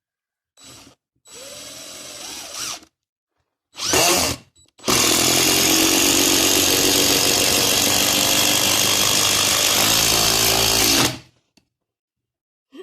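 DeWalt DCF885 cordless impact driver driving a 4-inch screw into wood. It starts with a few short, quieter runs, then gives about six seconds of loud, continuous impacting as the screw goes in, and stops abruptly. The screw goes in without the tool struggling.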